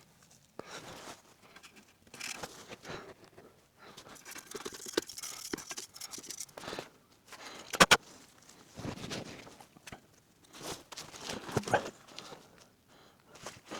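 Irregular handling noises: scraping, clinking and knocks, with one sharp double knock about eight seconds in.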